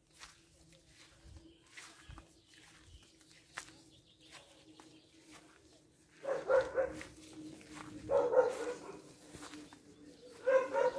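A dog barking in three short bouts, about six, eight and ten and a half seconds in, over a faint steady hum.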